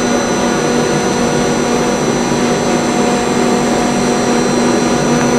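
Okuma & Howa Millac 438V CNC vertical machining center running a test program with its spindle at 2,000 RPM: a steady machine hum and hiss with several constant whining tones.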